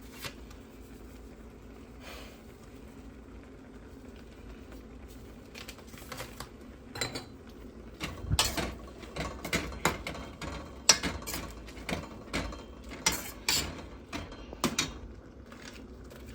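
A spoon stirring macaroni and cheese powder in a pot, clinking and scraping against the pot in quick irregular knocks that start about halfway through after a quieter stretch.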